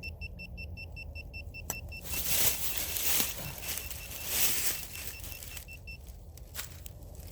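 Metal detector beeping in short, even pulses about five times a second, stopping about six seconds in. From about two seconds in, loud rustling and scraping as the ground is dug and leaves and dirt are moved.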